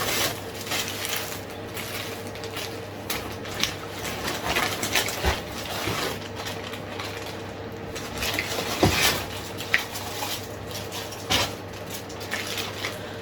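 Objects being handled: irregular light clicks, taps and knocks with some rustling, a few sharper knocks about 5 and 9 seconds in, over a faint steady hum.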